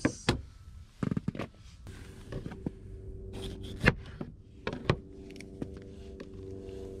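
Knife slicing bell peppers on a plastic cutting board: a string of sharp knocks and clicks as the blade meets the board, with a quick run of taps about a second in.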